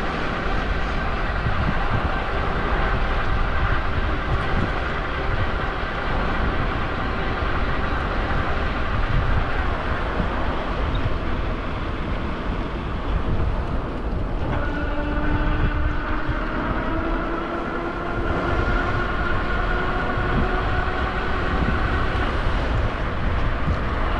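A rail vehicle running close by: a steady rumble, then from just past the middle a whine that slowly rises in pitch.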